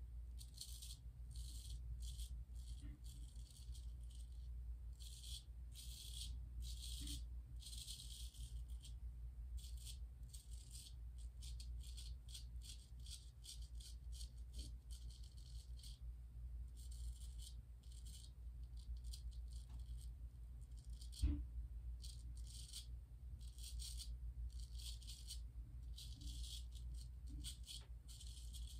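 Gold Dollar 208 straight razor scraping through lathered stubble in many short, irregular strokes, each a crisp rasp, over a low steady hum. A single knock about 21 seconds in.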